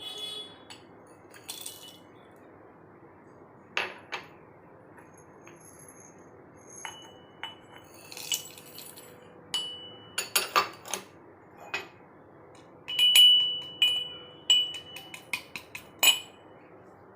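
Kitchen utensils clinking and knocking against each other, some strikes ringing briefly. The strikes come singly at first and crowd together in the last several seconds.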